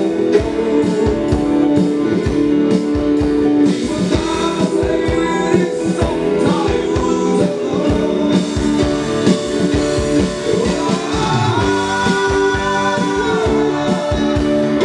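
Live band playing a rock song: a singer with acoustic guitar, backed by electric bass, drum kit and keyboard, with a steady drum beat.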